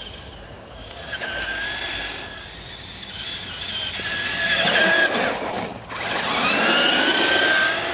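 Electric motors and gearbox of a Traxxas E-Maxx RC monster truck whining under throttle. The pitch rises and falls as it speeds up and slows, with two long, louder stretches in the second half.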